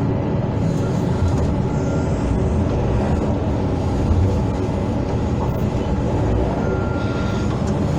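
Hydraulic excavator's diesel engine running steadily, with its hydraulics working.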